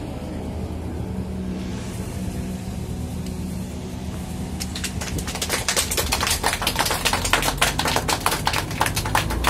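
Small motorboat's engine running steadily, joined about four and a half seconds in by a rapid clattering of clicks that lasts to the end.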